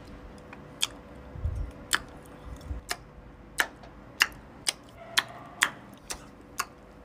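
A run of sharp, dry ticks, a few spaced out at first and then coming about two a second, over a faint steady hum.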